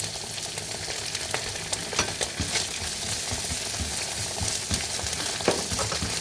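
Onion, garlic, red bell pepper and tomato paste sautéing in oil in a pan, sizzling steadily, while a utensil stirs and clicks against the pan, with one louder knock near the end.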